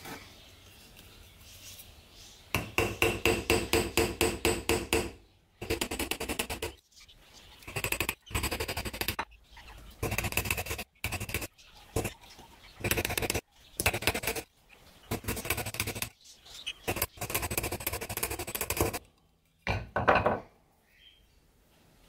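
A small hammer tapping rapidly on the pins of a brass-scaled pocket knife resting on a sledgehammer head used as an anvil, peening the pins over. The light metallic taps come in runs of about seven a second with short pauses between runs, and there are two single harder taps near the end.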